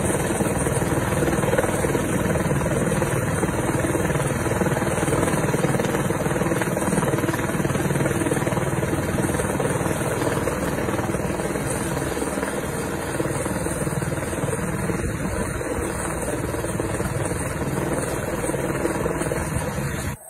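Helicopter hovering low overhead during a basket hoist, its main rotor and turbine running steadily.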